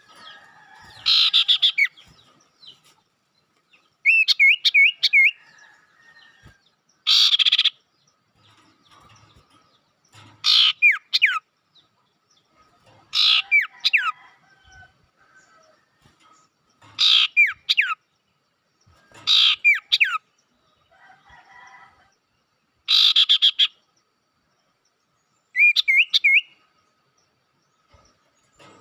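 Sirtu birds calling: loud short calls about every three seconds, most of them harsh rasping notes and a few of them wavering whistled trills, with fainter chirps between them.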